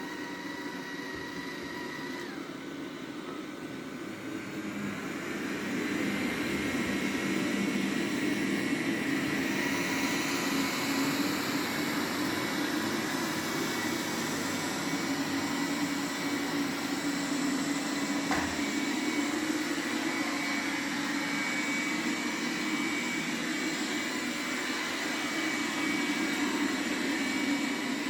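Roborock Q7 Max robot vacuum running, with a steady high fan whine over a low motor hum. About five seconds in, the whine rises in pitch and the sound gets louder as suction boosts on carpet, then holds steady. There is a single brief click partway through.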